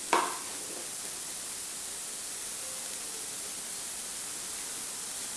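Steady sizzling hiss of prawns and masala frying in coconut oil in a pan, after a short clink right at the start.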